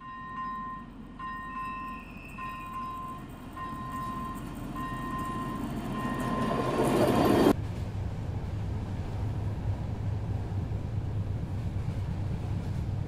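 Czech Railways class 754 diesel locomotive hauling a passenger train past on a curve, growing louder to a peak about seven seconds in, with a high tone repeating at even intervals over it. It then cuts suddenly to the steady low rumble heard inside a moving passenger coach.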